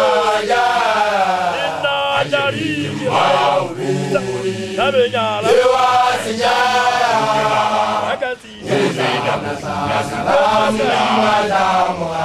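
A group of young Basotho initiates (makoloane) chanting an initiation song together. A leading voice rises and falls over the steady chorus of men's voices, with a short break about eight seconds in.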